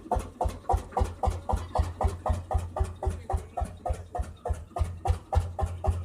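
Vintage tractor engine running with an even putt-putt of about five or six beats a second.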